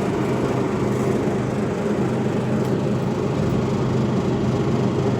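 Steady low machine hum, unchanging in pitch and level, like a fan or motor running continuously.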